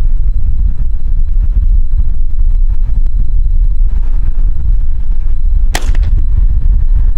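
Strong wind buffeting the microphone, making a steady low rumble, with a single sharp rifle shot almost six seconds in.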